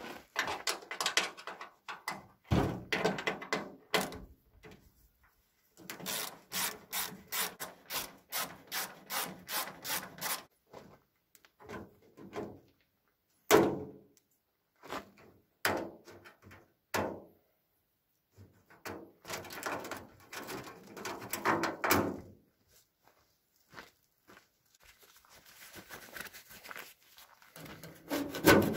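Hand-tool work on a Belarus MTZ-52 tractor's sheet-metal hood and mesh grille: bursts of knocks, clicks and rubbing strokes with short quiet gaps between. A quick even run of strokes, about three a second, comes a few seconds in.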